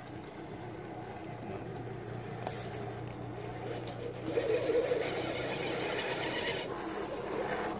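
A radio-controlled scale crawler truck driving slowly over rock, its small electric motor and gears whirring. About four seconds in the sound gets louder and rougher as the truck climbs nearer.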